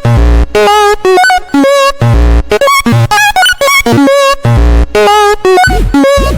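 Electronic music: short, choppy pitched notes with a wavering tone over heavy, repeated bass hits.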